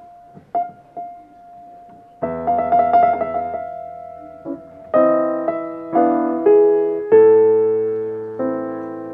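Steinway & Sons grand piano played solo: a few quiet single notes, then a chord about two seconds in, and three more chords a second apart, the last one held and slowly dying away.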